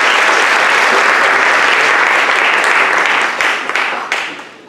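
Audience applauding. The clapping thins to a few last separate claps about three seconds in and fades out near the end.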